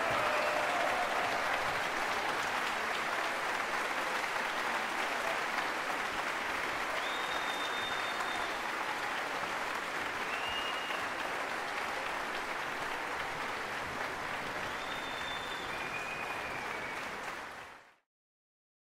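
Concert audience applauding steadily in a large hall, with a few short high whistles over the clapping; the applause fades out quickly near the end.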